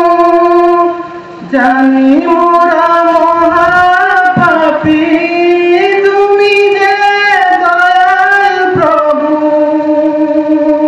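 A man's solo voice singing a Bengali song into a microphone, in long held notes that slide up and down between pitches, with a short break for breath about a second in.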